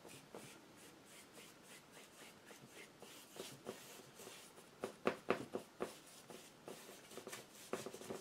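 Paintbrush scratching and rubbing acrylic paint across a canvas panel in short back-and-forth strokes, blending the background. The strokes are faint, with a cluster of sharper, louder strokes about five seconds in.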